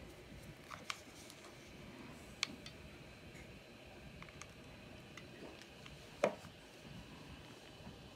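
Faint handling noise: a few light clicks and taps as small craft pieces and a hot glue gun are handled on a tabletop, with the sharpest knock about six seconds in.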